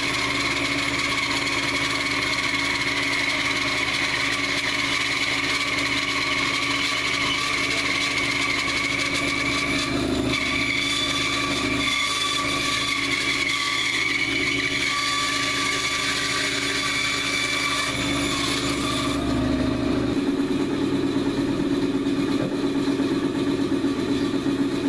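Bandsaw running steadily with its 3/8-inch blade crosscutting through a dry log, a constant motor hum under a higher whine from the cut. About 19 seconds in the blade clears the wood and the high whine drops away, leaving the saw running free.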